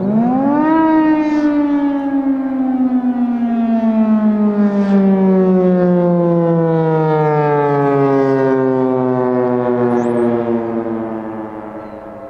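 Federal Signal Thunderbolt 1000 civil-defense siren wailing through one cycle. It rises sharply in pitch within about a second, then falls slowly for about ten seconds and fades near the end, as in the rising-and-falling Attack signal.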